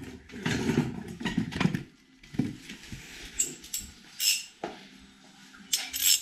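Scattered knocks and rubbing for the first two seconds, then a few short, sharp metallic clinks of a socket wrench and extension being fitted onto a front strut-top nut under the bonnet of a Nissan 350GT.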